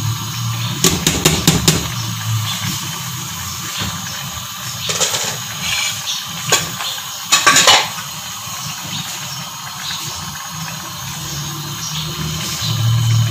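Wooden spoon knocking and scraping against a large metal cooking pot while stirring a thick chicken and bean curry: a quick cluster of knocks about a second in, then a few scattered knocks and a short scrape in the middle.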